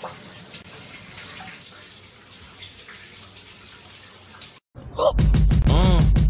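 Shower head spraying water, a steady hiss. It cuts off about four and a half seconds in, and loud music with a singing voice starts up.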